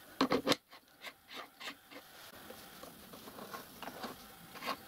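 Steel four-way lathe tool post being fitted onto its stud on a small lathe's cross slide: a quick cluster of metal clinks and clunks just after the start, then light taps and scrapes of handling.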